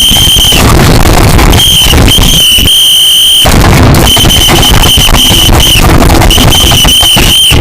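Harsh, heavily distorted noise at full loudness, with a shrill steady high tone that cuts in and out about five times: a homemade alarm sound.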